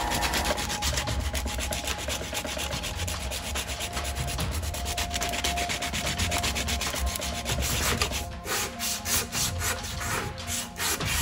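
Hand sanding a wooden knife handle with a loose sanding disc: rapid back-and-forth scratchy strokes that turn into slower, separate strokes near the end.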